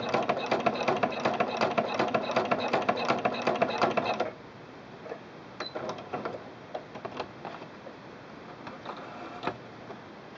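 Singer Quantum Stylist 9960 sewing machine stitching with a ruffler attachment fitted, a fast, even run of needle strokes that stops abruptly about four seconds in. After that come only a few scattered light clicks and rustles as the gathered fabric is handled at the foot.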